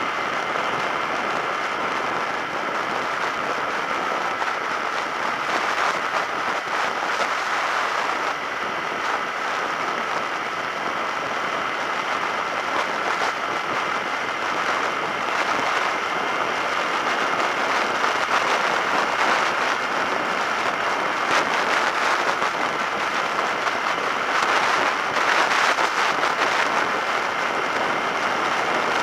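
Steady wind and road rush over a motorcycle-mounted camera's microphone as a Suzuki SV650S rides at steady speed, with a faint steady engine tone under the noise. The noise grows slightly louder in the last third.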